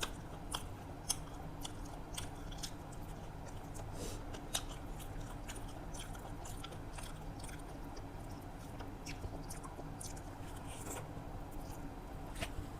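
Close-up chewing and biting of a meal of rice and fried vegetables, heard as irregular wet clicks and small crunches over a steady low hum.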